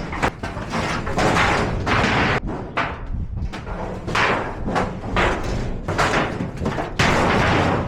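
Thin sheet-metal panels of a metal shed banging and crashing as the shed is knocked apart, in a string of irregular loud clangs about a second apart, with one of the heaviest near the end.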